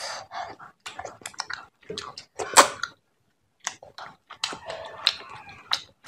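Wet, close-miked eating sounds of fish head curry and rice eaten by hand: chewing, lip smacks and sticky finger clicks in a run of short crackles, with one louder smack and a brief pause about three seconds in.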